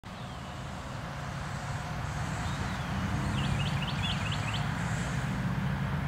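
Low rumble of approaching diesel locomotives, slowly growing louder. A small bird chirps over it, with a quick run of about eight descending notes around the middle.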